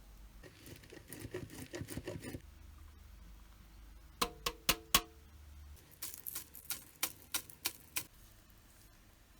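Kitchen prep sounds: about two seconds of rubbing, scraping, then four sharp taps with a brief ring around the middle, followed by a quicker run of about eight clicks.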